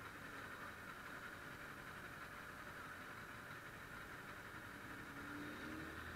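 Kawasaki ER-6f's parallel-twin engine idling faintly and steadily at a standstill, under a steady hiss.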